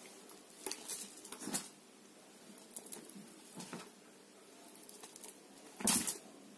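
Beaded string with bangles dragged and swished across a bedspread: a scatter of brief rustles and clicks of beads and bangles on cloth, the loudest just before six seconds in.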